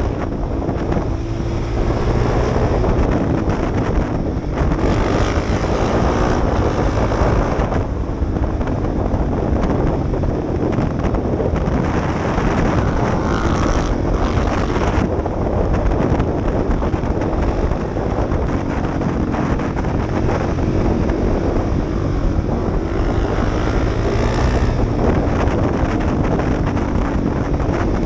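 Motorcycle engine heard from an onboard camera at riding speed, its pitch rising and falling repeatedly as the rider accelerates, backs off and changes gear, with wind rushing over the microphone.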